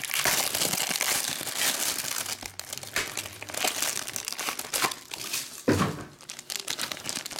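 Cellophane shrink wrap crinkling and tearing as a trading-card box is unwrapped and its cardboard flap pulled open, then a foil-wrapped pack crinkling in the hand, with one louder crunch about six seconds in.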